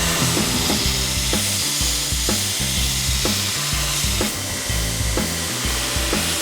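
Background music with a steady beat, over a steady high hiss of a power tool at work that eases slightly about four seconds in.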